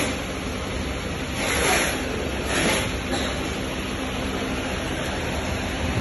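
Steady rushing fan noise with two brief louder swishes, about one and a half and two and a half seconds in.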